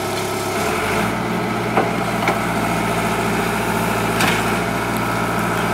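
Kobelco hydraulic excavator's diesel engine running steadily as its boom and arm are lowered from atop a flatbed truck, its note shifting slightly just under a second in, with a few short metallic clanks.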